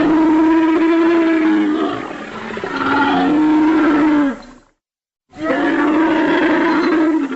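Glyptodont creature sound effect: long, low, drawn-out roaring calls. One call falls in pitch and cuts off about four and a half seconds in, and after a short silence another call begins.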